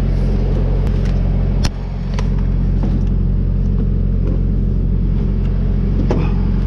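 Diesel semi-truck engine idling steadily, with a few knocks and clunks as jugs and tools are shifted in the truck's side storage compartment; one sharper knock comes about a second and a half in.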